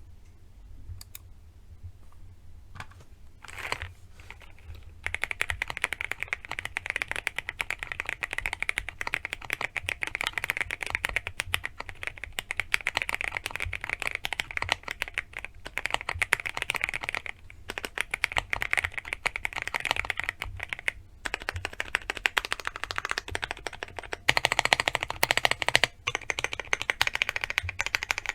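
Monsgeek M1 mechanical keyboard with Akko Jelly Black linear switches being typed on: a few single keystrokes at first, then fast continuous typing from about five seconds in, broken by a few short pauses.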